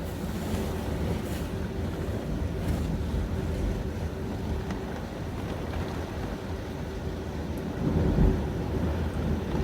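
Heavy thunderstorm rain pouring down, a steady rushing hiss with a low rumble of wind underneath.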